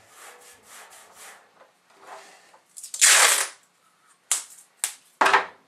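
Tape being pulled off the roll with a loud rip about three seconds in, then short tearing rasps near the end, after soft rubbing as the tape is pressed onto the tool chest's metal lid.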